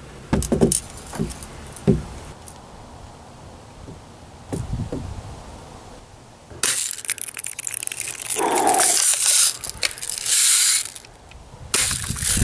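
Clicks and knocks of a Daisy Red Ryder BB gun being handled and brought to aim, then a long, loud stretch of rushing noise.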